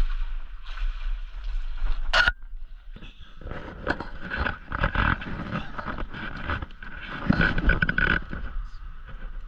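Water splashing and the scraping and rustling of a landing net and handling as a freshly caught northern pike is lifted from shallow river water onto a muddy bank. There is a short, sharp noise about two seconds in, then a few seconds of dense, irregular scraping and splashing.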